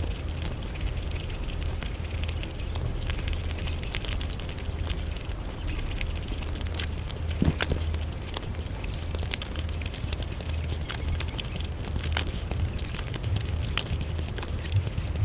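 Close-miked eating sounds played at five times speed: chewing and mouth sounds turned into a dense, fast crackle of clicks over a steady low hum.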